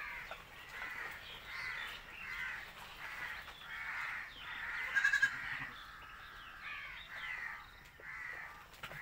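Goats bleating, with one louder, quavering bleat about five seconds in and fainter bleats in between.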